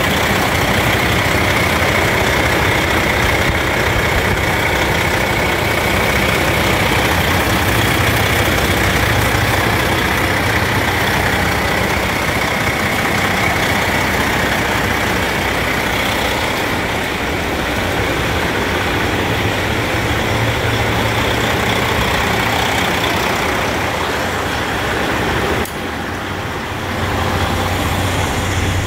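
Detroit Diesel Series 60 diesel engine of a 2005 Freightliner Columbia tractor idling steadily, heard close to the open engine bay while the truck builds air pressure. The level dips suddenly near the end.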